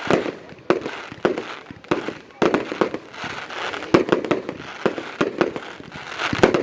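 Fireworks display: a rapid series of aerial shell bursts, about a dozen sharp bangs at irregular intervals, with crackling and hiss between them.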